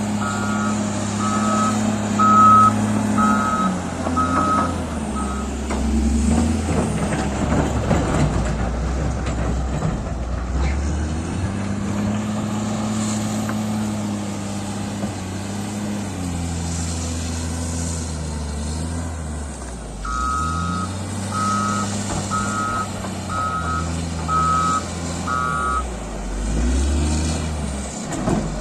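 A heavy construction machine's diesel engine runs loudly, its speed rising and falling several times under load. Its reversing alarm beeps steadily, about once every three-quarters of a second, for the first few seconds and again for several seconds near the end.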